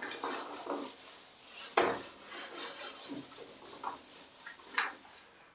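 Whiteboard duster rubbing across a whiteboard in repeated wiping strokes as the board is erased, with a sharp knock about two seconds in.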